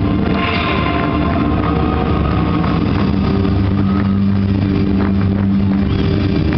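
Pre-game intro soundtrack blasting over the arena PA, loud and distorted on the recording: a steady low drone of held tones with no break.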